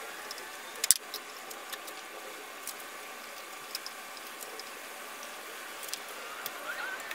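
Hands and tools working a serpentine belt around the engine pulleys: scattered light clicks and rattles, with one sharp click about a second in, over a steady background hum.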